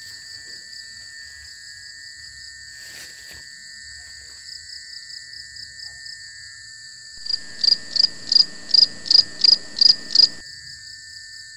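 Night chorus of crickets and other insects, a steady high chirring. About seven seconds in, a much louder pulsed call from something close by joins it: about nine notes, roughly three a second, then it stops.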